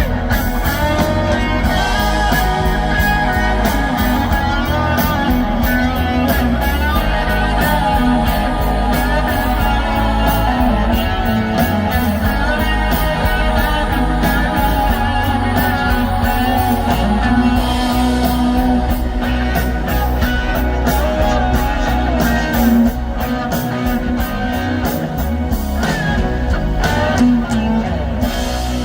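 Live rock band playing, with electric guitar and singing over a steady bass.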